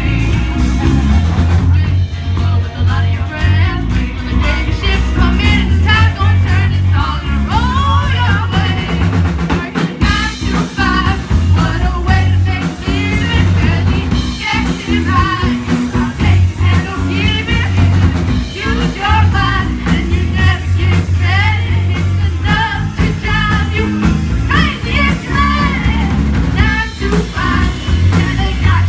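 Amateur rock band playing live: a singer over drums, bass and electric guitar.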